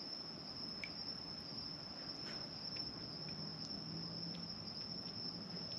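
Crickets trilling at night: one steady, high, unbroken insect note, faint, with a few soft clicks scattered through it.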